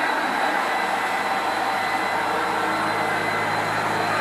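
1969 Hoover Junior 1354 upright vacuum cleaner's motor running steadily just after being switched on, a smooth, even hum with a faint steady whine on top.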